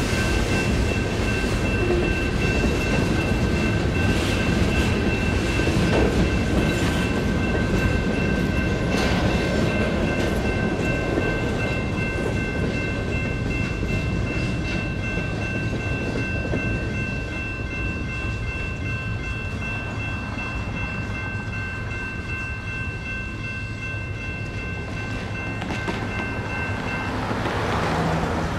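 Railroad crossing's electronic bell (GS Type 2 E-Bell) ringing steadily while the tail end of a freight train rumbles and clacks over the crossing. The bell stops near the end as the crossing clears, and a car passes.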